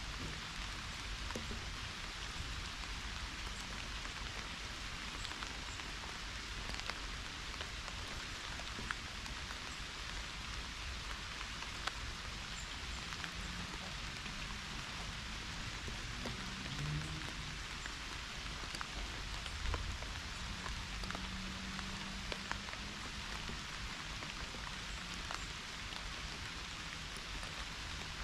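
Pouring rain falling steadily in a dense, even hiss, with scattered sharper drop ticks close by.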